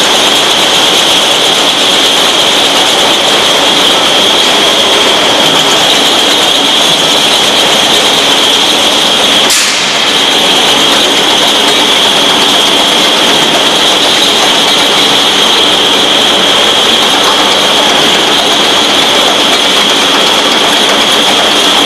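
Pilfer-proof cap making machinery running: a loud, steady mechanical din with a constant high whine over it, broken by a brief dip about ten seconds in.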